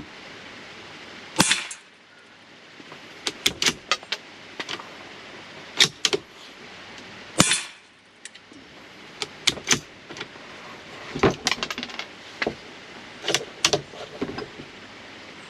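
Citadel TRAKR .22 LR bolt-action rifle being fired, with sharp cracks about a second and a half and seven seconds in. Between the shots come clusters of metallic clicks from the bolt being worked to eject and chamber the next round.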